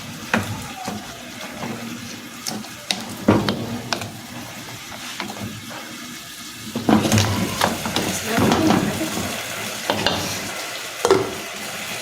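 Pineapple pieces cooking in melted sugar in a pan on the stove, sizzling, with a spoon knocking and scraping against the pan as it is stirred. The mixture is heating up toward the boil as the pineapple starts to release its juice.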